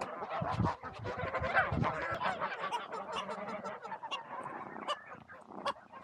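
Farmyard poultry calling, a dense run of calls over the first two or three seconds, then scattered sharp clicks and rustling.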